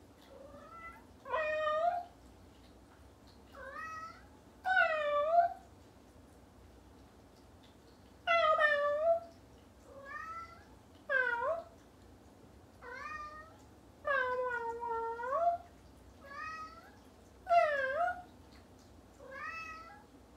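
Bengal cat meowing about a dozen times, in short and drawn-out calls a second or two apart, each call bending up and down in pitch; one near the middle lasts about a second and a half.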